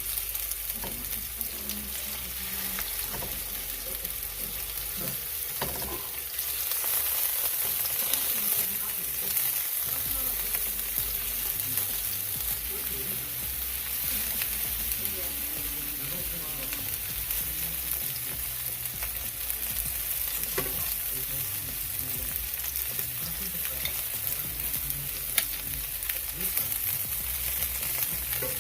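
Turkey meatballs frying in hot olive oil in a pan, a steady sizzle that grows louder about six seconds in, with a few faint clicks.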